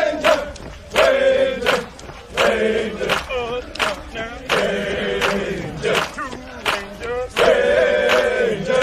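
Men's voices chanting a U.S. Army Ranger running cadence together, over a steady added percussion beat of about one hit every three quarters of a second.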